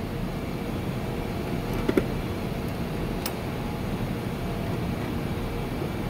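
Steady background hum, with two small metal clicks: a screwdriver and screws against the steel mounting of a replacement microwave magnetron as the screws are started. The first click is a little before two seconds in, and the second, sharper one about a second later.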